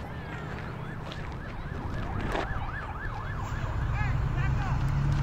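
A distant emergency-vehicle siren wailing in a fast, even rise-and-fall, about three cycles a second; a low rumble grows louder near the end.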